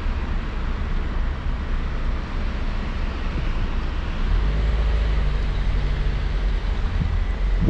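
Car interior noise: a steady low engine rumble with a hiss over it, the rumble growing heavier about four seconds in.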